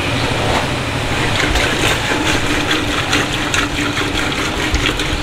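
Lassi being churned in a steel pot with a wooden churning stick twirled between the palms: rapid liquid sloshing and splashing with quick clicks, over a steady hum.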